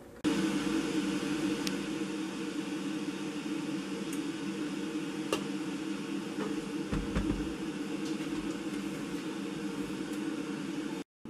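A steady mechanical hum with a few faint clicks and a low knock about seven seconds in; it cuts off suddenly just before the end.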